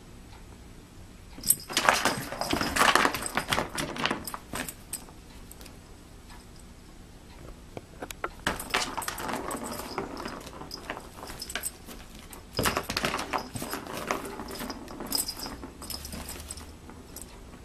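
Cat playing in a Bergan Turbo Track toy with a tray of cat grass: the plastic ball rattles around the plastic track and the cat scrabbles in the grass tray. The clattering comes in three bursts: about a second and a half in, around eight seconds, and around twelve and a half seconds.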